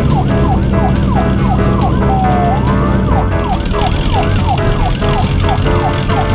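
Police car siren sound effect, a rapid yelp of swooping tones about three times a second, with one longer rising sweep in the middle.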